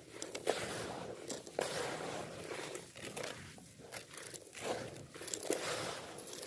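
Hands digging through and scooping a tub of dry crumbled black grit, the granules crunching and pouring back down in repeated gritty rustles, with a few sharper crackles.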